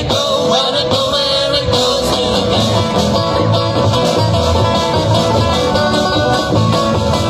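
A band playing a song live, loud and continuous, with a regular pulsing bass under the instruments.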